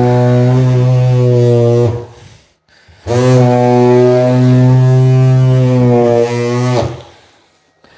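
Handheld tile vibrator buzzing with a steady low hum as it is pressed down on a large-format 24 x 48 inch floor tile to bed it into the thinset, in two runs of about three seconds with a short pause about two seconds in.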